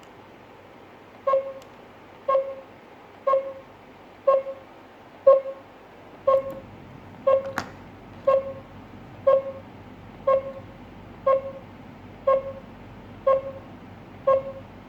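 GSM alarm system panel beeping: a short, mid-pitched beep every second, with a single sharp click about halfway through.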